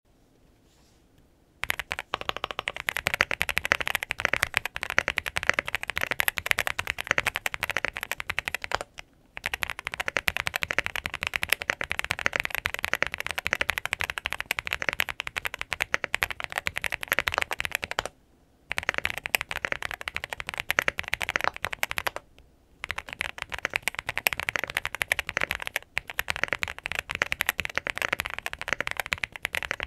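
Fast typing on a Tiger Lite mechanical keyboard fitted with Haimu Midnight switches: a dense stream of key clacks starting about a second and a half in. It breaks off three times for a moment between sentences.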